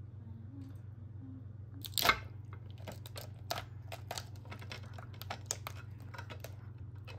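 Crunching and crackling close to the microphone: one sharp crackle about two seconds in, then a run of short, irregular clicks and crunches, over a steady low hum.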